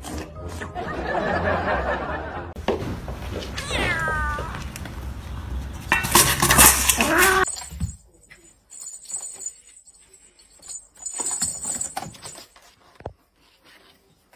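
A cat meowing, a gliding meow about four seconds in, then a loud drawn-out yowl from about six seconds. After that only faint scattered scratching and light knocks on a cardboard cat scratcher box.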